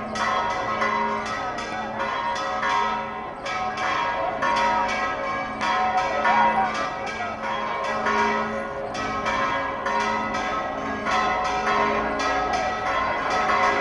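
Church bells pealing, struck in quick succession at about three strokes a second, their overlapping notes ringing on.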